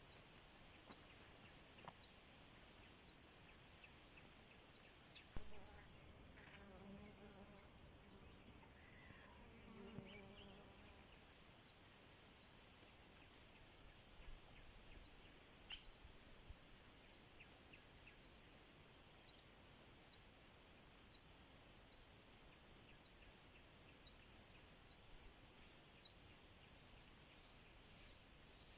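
Near silence with faint insect chirping: a steady high hiss with short chirps repeating about once a second.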